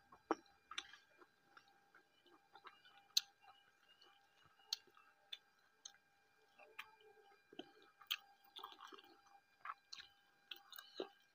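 Faint close-miked chewing and mouth sounds of someone eating rice and fish by hand, with scattered small clicks and smacks.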